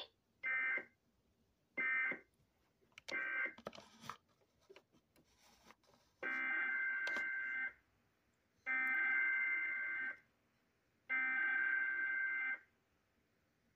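NOAA Weather Radio SAME data bursts, the buzzy digital warble of EAS coding. First come three short end-of-message bursts closing the severe thunderstorm warning. After a few seconds of faint clicks and static come three longer header bursts, each about a second and a half, that open the next alert.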